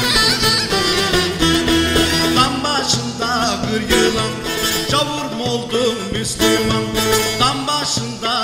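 Turkish folk music: bağlama sazes playing along with a short wind pipe in an instrumental passage, with the melody ornamented in wavering turns.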